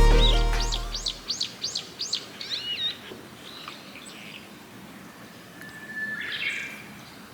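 Background music fades out, then a bird gives a quick run of sharp chirps, each sweeping downward, about three a second for two seconds. A few fainter calls follow about six seconds in.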